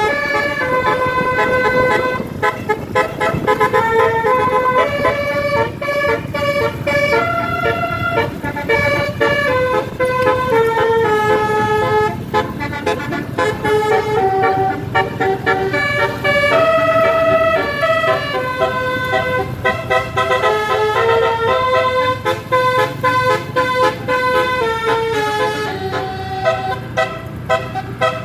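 36-note Basuri telolet bus horn playing a fast, continuous melody of short stepped notes, with vehicle running noise underneath.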